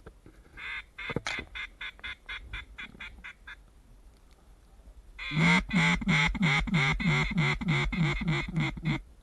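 Duck call blown in runs of quacks: a softer series of about a dozen short quacks, then, after a pause, a loud run of about fifteen quacks, each dipping in pitch, calling to ducks passing overhead.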